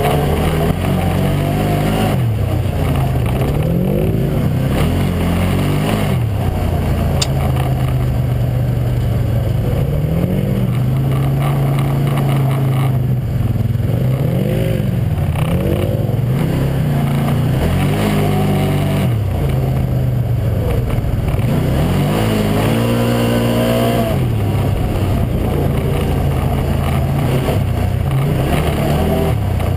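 Arctic Cat Wildcat 1000X side-by-side's V-twin engine running hard, its pitch rising and falling over and over as the throttle is worked. Steady noise from the tires on the gravel runs under it.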